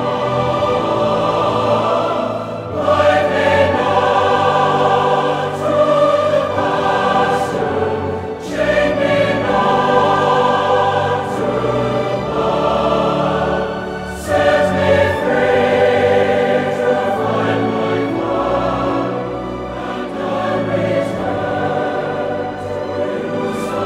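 Slow choral music: a choir singing long held phrases, with brief breaths between phrases.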